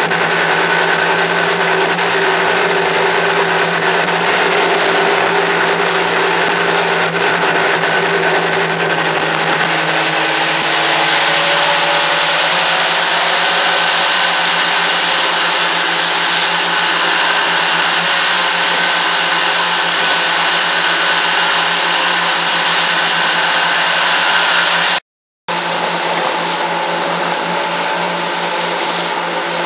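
Twin outboard motors driving a boat at speed, a loud steady drone mixed with the rush of wind and churning water. The sound breaks off for a moment near the end.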